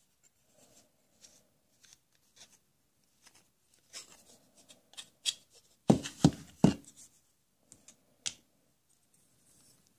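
Plastic toy tool parts being handled: small clicks and rubs, then a quick cluster of about three sharp plastic knocks about six seconds in.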